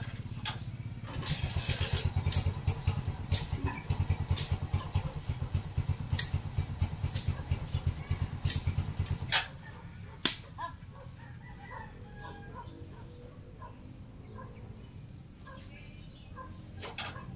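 Brush cutter's small engine running with a fast-pulsing drone and sharp clicks. It stops about nine and a half seconds in.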